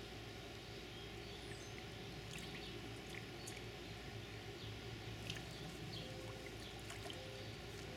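Faint splashing and lapping of shallow water in an inflatable kiddie pool as a baby shifts and moves his hands and feet in it, with a few short bird chirps in the background.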